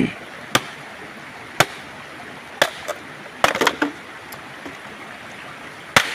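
Machete chopping bamboo: about seven sharp chops, roughly one a second, with three in quick succession a little past the middle.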